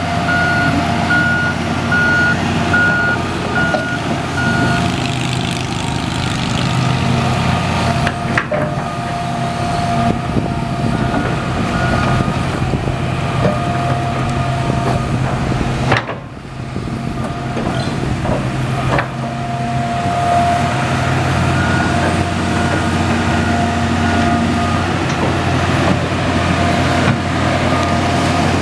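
Hitachi Zaxis 350 excavator's Isuzu diesel engine running steadily under hydraulic work, with a pulsing beep alarm during the first few seconds and again faintly later on. A sharp knock sounds near the middle, and the engine sound briefly drops after it.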